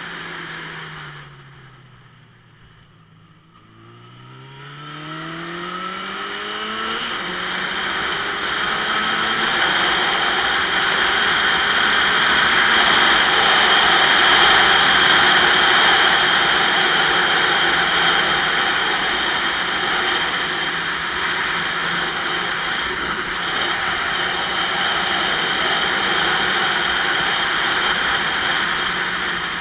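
Motorcycle engine falling in pitch as it slows, briefly quieter, then rising in pitch as it accelerates away. From about eight seconds in, a steady rush of wind over the camera's microphone at speed covers most of the engine.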